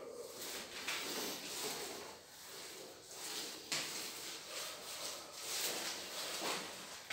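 Long-handled roller rolling and sliding back and forth over a wet grey waterproofing coat on a floor. It makes a rubbing, wet sliding sound that swells with each stroke, about once a second, with a few sharper scrapes.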